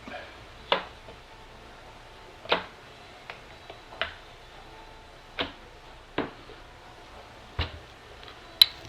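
Irregular sharp clicks and knocks, about nine in all spread unevenly, from crossbow parts being handled and fitted together during assembly.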